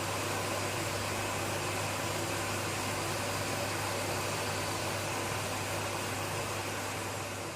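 Kitchen gas escaping with a steady, even hiss and a low hum underneath, fading out near the end.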